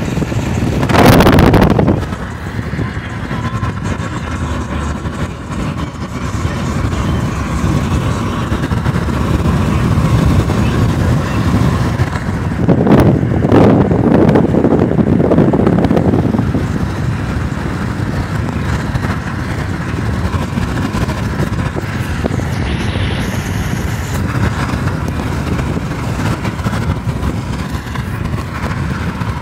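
Road noise in a moving car on a highway: steady tyre rumble and wind rush, with a short louder surge about a second in and a longer louder stretch around thirteen to sixteen seconds in.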